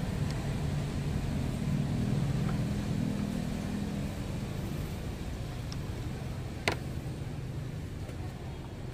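A steady low engine-like hum in the background, with one sharp metallic click about seven seconds in as a screwdriver works the clamp on a turbo intake hose.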